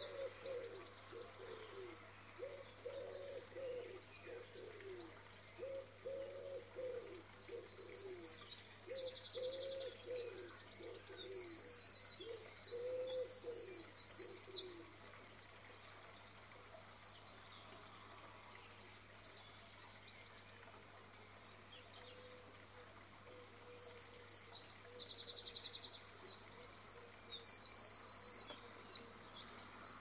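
Birds singing: bursts of high chirping phrases that come and go, and through the first half a low cooing call repeated about every second and a half.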